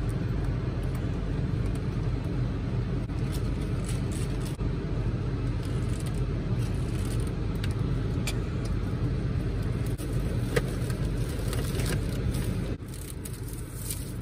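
Steady low hum inside a parked car's cabin, with a few light crinkles and clicks from a candy wrapper being handled. The hum drops slightly near the end.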